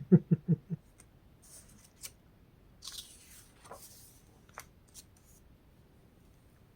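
Faint handling of a book's glossy paper pages: a few light clicks and a brief rustle of paper as the pages are handled and turned.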